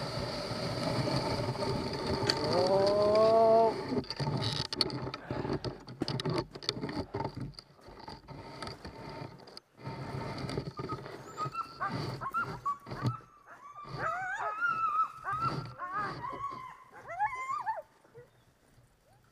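Sled dogs whining and yipping in many short rising-and-falling cries, thickest in the second half and dying away near the end. Before that, a steady rushing noise stops about four seconds in.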